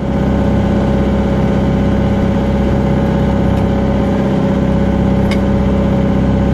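An engine running steadily at idle, a low, even hum with no change in speed.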